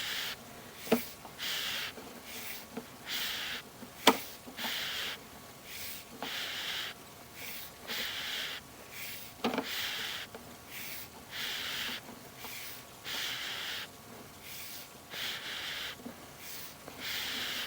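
Water running down a sewer line past the inspection camera, a hiss that comes in short irregular surges about once a second. A few sharp knocks, the loudest about four seconds in.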